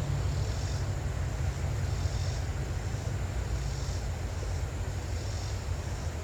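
Steady low outdoor rumble with a faint, high insect call repeating about every second and a half.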